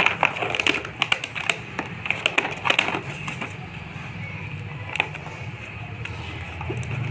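Fingers picking at and peeling clear packing tape off the edge of a cardboard toy box: a quick run of crackles and clicks in the first three seconds, one more click about five seconds in, then quieter rustling of the box being handled.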